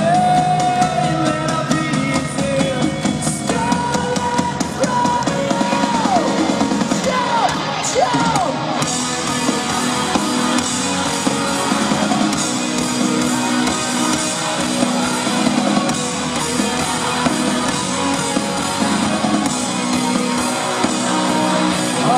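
Live rock band playing: electric guitars and a drum kit with a sung vocal, recorded from the crowd.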